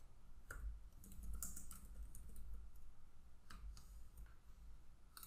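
Faint computer keyboard typing: scattered keystrokes at irregular intervals.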